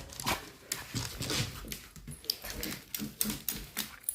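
A pet dog stirring close by: a string of quick, irregular clicks and scuffles, with soft snuffly sounds between them.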